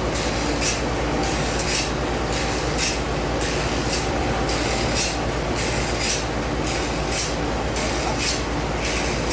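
Sawmill machinery running: a steady low hum with short bursts of hiss that come in pairs, about once a second.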